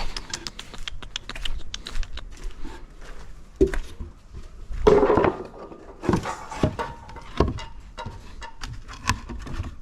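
Plywood boards being handled and test-fitted against the boat: a run of light knocks and clatters, with a longer, louder noise about five seconds in.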